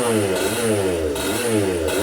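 Komet K30 rotary-valve two-stroke kart engine running on its first start, revved up and down about three times as its pitch rises and falls, while a new piston is being broken in.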